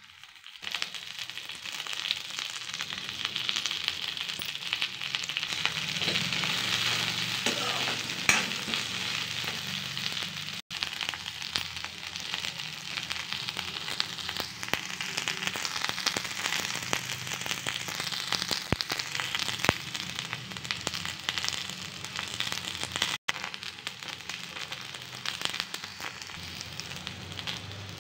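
Chopped okra frying in a little hot oil in a kadai: a steady sizzle with scattered sharp crackles and pops, starting about half a second in.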